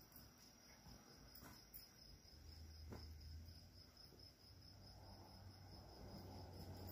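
Near silence with crickets trilling steadily in the background, and a faint low hum coming in about two and a half seconds in.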